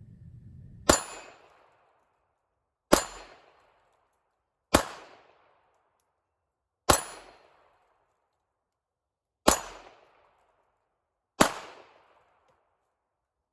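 Six pistol shots fired one at a time in slow, deliberate succession, about two seconds apart.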